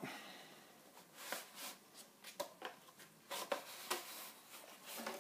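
Cardboard inner tray of a boxed diecast toy set being slid out of its card outer box: faint scraping and rustling of card with a few light clicks.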